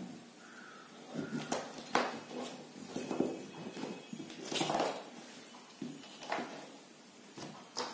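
Plastic wiring connectors on an e-bike controller's harness being handled and pushed together: irregular clicks and small knocks with rustling of the cables.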